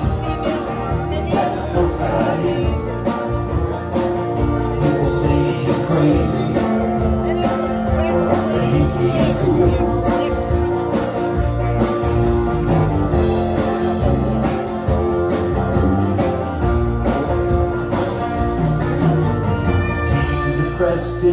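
A band playing live music, with guitar and a voice singing.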